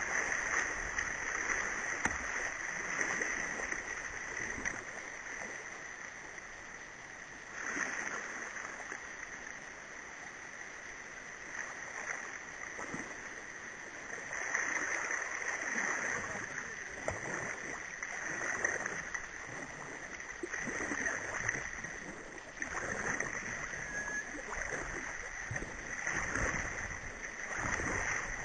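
Whitewater river rapids rushing around a kayak at very high flow, heard close up from the boat, with frequent splashes of water against the hull and paddle that come thicker in the second half.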